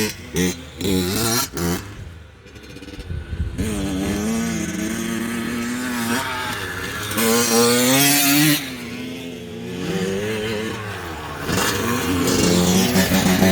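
Honda CR85R's two-stroke single-cylinder engine running with a freshly rebuilt top end. It is blipped in short bursts at first, then revved up and down with rising and falling pitch.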